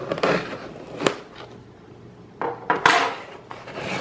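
Table knife cutting through the label seal on a cardboard box, with scraping strokes and a sharp click about a second in. Near the end the cardboard flaps are pulled open with louder rustling and scraping.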